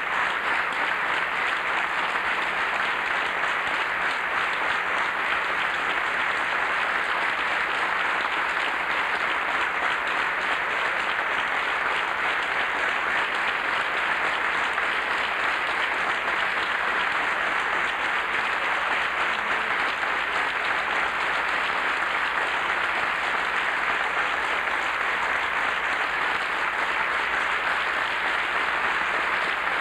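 Large audience giving sustained applause, dense and steady with no pauses.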